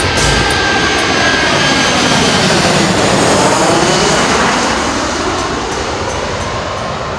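A loud, jet-like rushing whoosh of noise with a sweeping, flanging sound. It swells to a peak about halfway through and then slowly eases off, while the beat of the music drops out.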